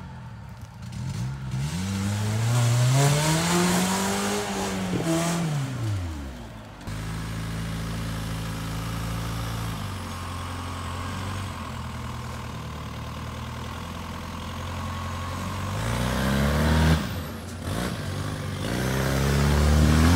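Off-road competition vehicle's engine revving up and down in long swells, then running steadily for several seconds, then revving hard again twice near the end.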